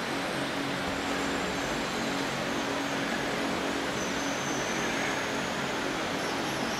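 Steady background machine hum with an even hiss over it and no distinct events; a faint high whine comes in about four seconds in.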